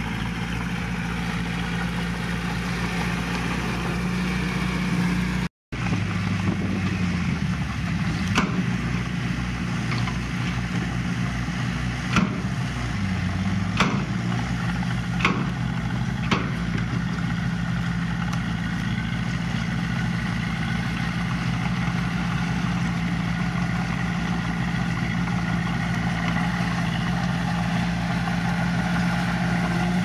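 Diesel engine of earthmoving machinery running steadily, with a brief dropout to silence about five seconds in. The engine then changes pitch as it works, and a few sharp knocks come between about eight and sixteen seconds in.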